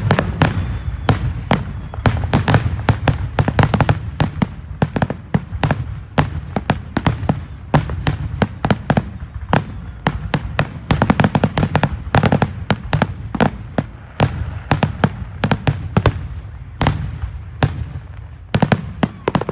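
Fireworks show: aerial shells and firecrackers bursting in rapid succession, several sharp bangs and crackles a second, over a steady low rumble.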